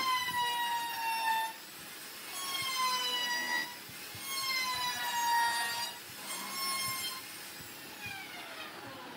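Woodworking power tool cutting into a workpiece: a high whine that sags slightly in pitch during each of several passes, each about a second or so long.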